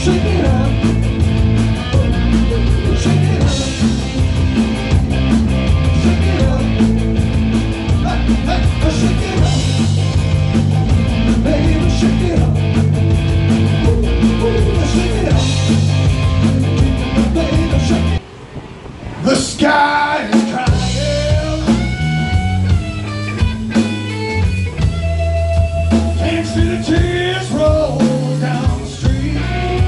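Live rock band playing: drums, bass, electric guitar and a male lead vocal. About two-thirds of the way in the whole band cuts out abruptly, a gliding note follows, and the band comes back in sparser with long held notes.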